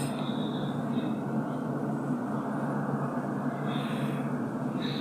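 A steady low mechanical hum, with a few faint short high-pitched tones over it.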